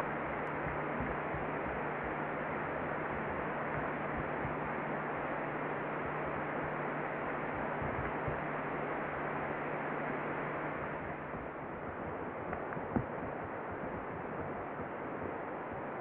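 Steady hiss of outdoor ambience with a low hum that stops about eleven seconds in, and one sharp click near the end.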